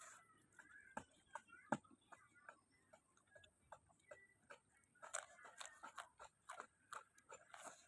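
Faint wet mouth clicks of someone chewing food, turning into a quicker run of clicks about five seconds in.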